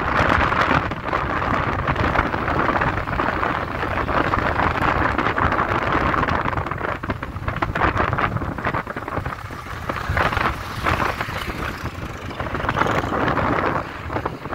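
Wind and road noise from a moving vehicle, the wind buffeting the microphone in uneven gusts.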